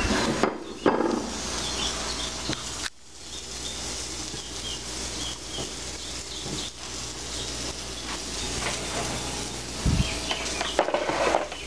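Breaded cod fillets sizzling as they pan-fry, with rustling and knocking as another fillet is handled and pressed into breadcrumbs on a plate. The sound drops sharply about three seconds in, and there is a low thud near the end.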